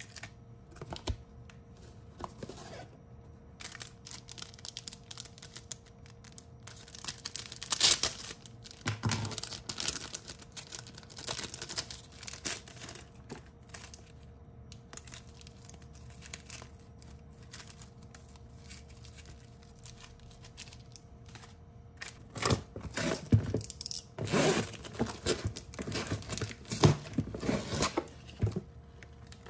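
Cardboard parcel and plastic sticker sleeves being handled and torn open: irregular tearing, rustling and crinkling, loudest about eight seconds in and again through the last several seconds. A faint steady hum lies underneath for most of it.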